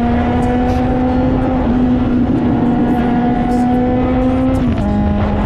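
Suzuki GSX650F's inline-four engine running at steady revs while riding. Its note creeps up slightly, then steps down a little near the end.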